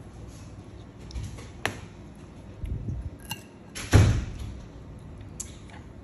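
A few scattered clicks and knocks of a metal fork against a plate of food, the loudest a heavier knock about four seconds in.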